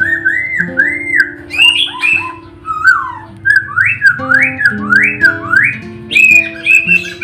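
A songbird singing clear whistled phrases, arched notes and then a run of quick rising sweeps, over soft background music of held and plucked notes.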